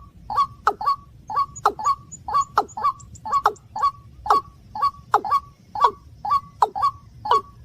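Rail calls from a waterhen and watercock lure recording: short, sharp notes repeated steadily about two to three times a second, each dropping in pitch, over a low steady hum.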